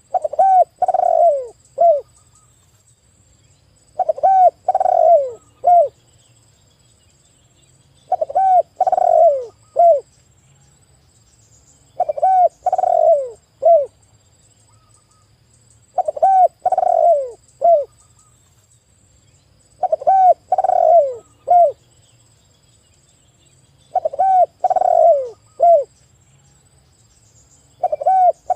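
Spotted dove (tekukur) cooing: a phrase of three or four deep coos, each about two seconds long, repeated at an even four-second spacing.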